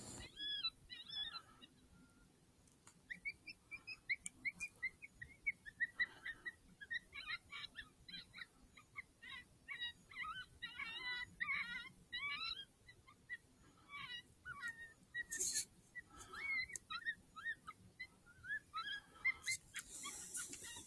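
Faint coyote yips and whines: many short, rising and falling cries in quick runs, with a brief rush of noise near the end.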